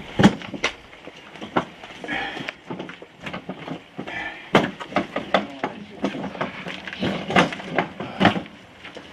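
A hand truck carrying a dog rolls and rattles over a gravel driveway, with footsteps on the gravel and irregular knocks and crunches about once or twice a second. Two short high squeaks come about two and four seconds in.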